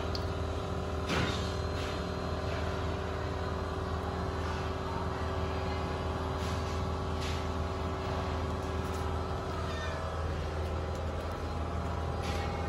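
Kittens mewing over a steady low hum, with a few short clicks.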